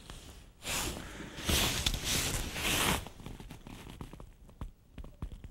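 Rustling of a nylon rain suit as the angler moves, in a few swishing surges from about half a second in to about three seconds, then a few faint clicks.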